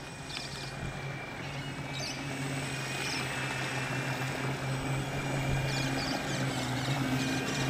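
Radio-controlled model boat's motor running steadily at speed with a thin high whine over the hiss of its hull through the water, growing gradually louder as it comes closer. A few faint bird chirps sound above it.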